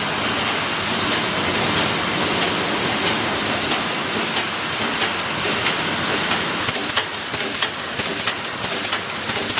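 Pneumatic wire mesh welding machine running: a steady loud hiss of air, joined about seven seconds in by a quick, regular run of sharp clacks.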